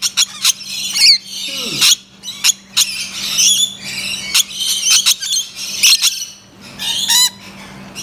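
Rainbow lorikeets screeching and chattering: many short, shrill calls in quick succession.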